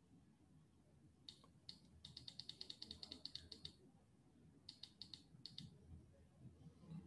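Faint clicking of a computer mouse scroll wheel as a document is scrolled: two single clicks, then a fast even run of about eight clicks a second for over a second and a half, then a few more clicks near the end.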